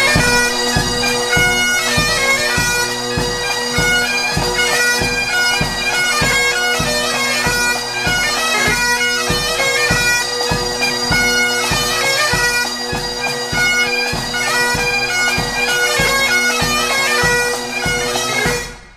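Military pipe band playing: bagpipes with steady drones under the melody, over a regular drum beat. The music cuts off suddenly near the end.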